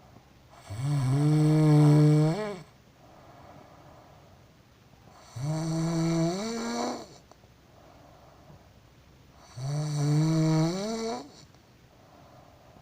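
Snoring: three long, loud, pitched snores about four seconds apart, each rising in pitch at its end, with softer breathing sounds between them.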